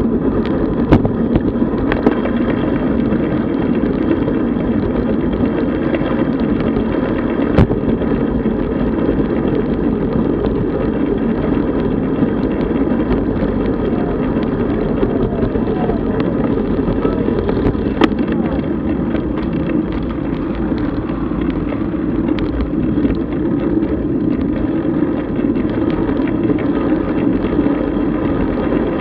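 Onboard audio from a road bicycle in motion: a steady rush of wind on the microphone with tyre and road noise, broken by a few sharp knocks, the clearest about seven and eighteen seconds in.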